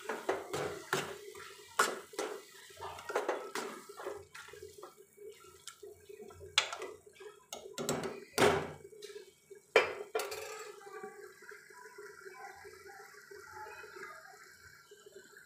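Steel spoon scraping and knocking against a steel kadai as thick tomato-onion masala is stirred while it fries, over a steady hum. The clatter is busiest in the first ten seconds, with a few loud knocks, and then dies down.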